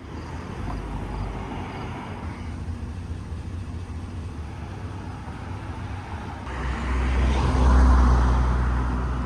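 Road traffic with a steady low rumble; a vehicle passes, swelling louder from about two-thirds of the way in and peaking near the end.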